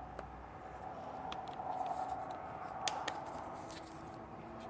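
Faint scraping and a few light clicks of a small pry tool working plastic push-pin fasteners out of a plastic air dam, over a steady faint hum.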